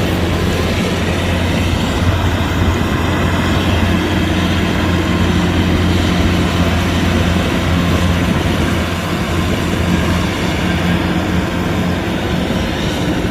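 Kubota DC-105X combine harvester's diesel engine and harvesting machinery running steadily, a constant low hum under a broad mechanical rush.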